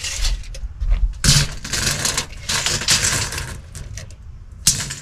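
Steel tape measure being pulled out and worked along a cot and floor: several bursts of scraping, clattering noise from the blade and case, with a short sharper noise near the end.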